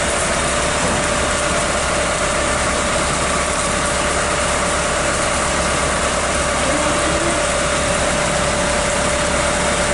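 Fuel-fed torch flame blasting into a large wasp nest in a tree: a loud, steady, unbroken roar with a constant hum under it.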